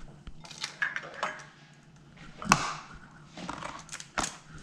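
Eggs being cracked open over a glass mixing bowl: a series of sharp taps and shell cracks, the loudest about two and a half seconds in.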